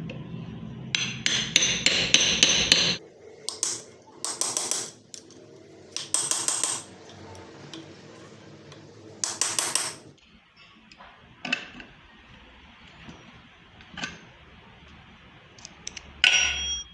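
Hammer striking metal in several quick runs of blows, then a few single knocks.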